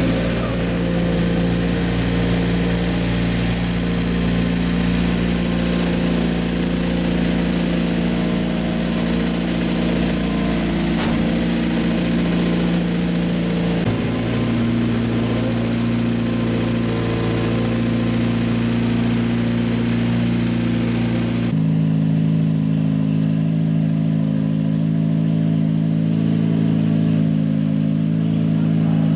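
A BMW E92 drift car's Mercedes M111 inline-four engine idling steadily. Its tone shifts abruptly twice, about halfway through and again later on.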